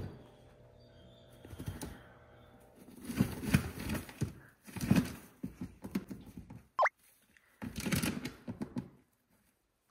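A house rabbit munching and rummaging in dry hay: bursts of rapid crisp crunching and rustling clicks, with a brief high squeak a little past the middle.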